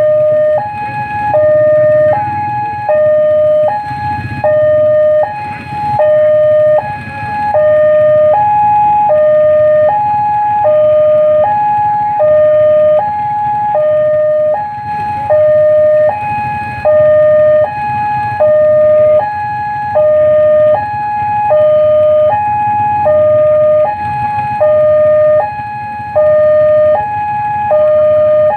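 Railway level-crossing warning alarm: an electronic two-tone signal alternating steadily between a high and a low note, about one high-low pair per second.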